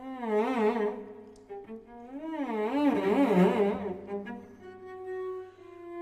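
Cello played with the bow, its notes sliding and wavering in pitch with a wide, slow vibrato. The sound swells twice, then settles into steadier held notes near the end.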